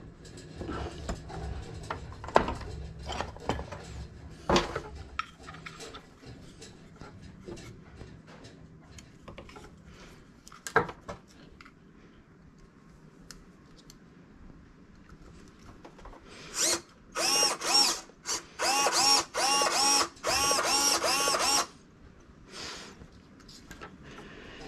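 Scattered handling clicks and knocks on an RC boat hull, then, about two thirds in, an RC rudder servo whirring in a quick run of short bursts for about five seconds, each burst rising and falling in pitch, as the newly installed steering is worked back and forth.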